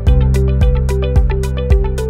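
Background music with a steady beat of about two drum hits a second under sustained pitched notes.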